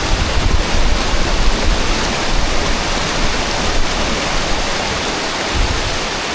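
Waterfall cascading down a rocky drop, a steady loud rush of water, with wind buffeting the microphone in low rumbling gusts, strongest near the end.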